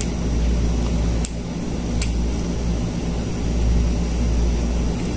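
A steady low machine hum throughout, with two sharp clicks about a second and two seconds in from a spinning fishing reel being handled.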